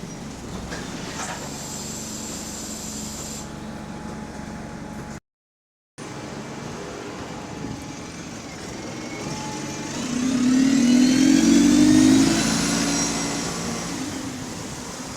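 A city bus's engine and drivetrain heard from inside the bus as it pulls away, the pitch rising as the engine revs up. Under it runs a repetitive clocking knock that speeds up with engine speed. It comes from somewhere underneath the bus, which the passenger suspects is a loose part.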